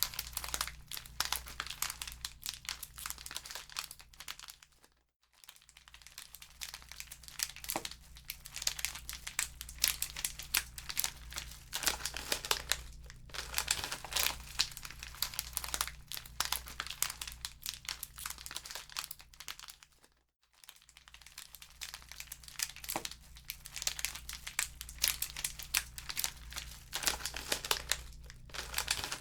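Wood fire crackling in a fireplace, a dense run of small pops and snaps. The sound drops out almost completely twice, for about half a second each, about 5 and 20 seconds in.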